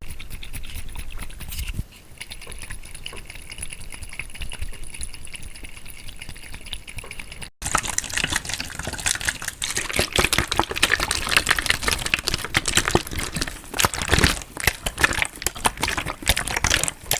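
Water handled close to the microphone for ASMR: a softer, steady liquid sound for about seven seconds, then, after a brief break, a busier stretch of many small splashes and clicks.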